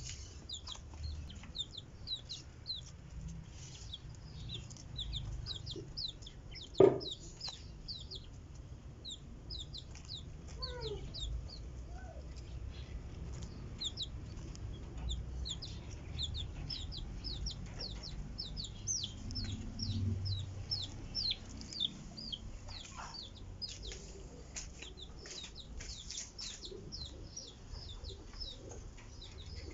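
Caged quails chirping: a steady run of short, high, falling peeps, with a few lower calls and one louder sharp sound about seven seconds in.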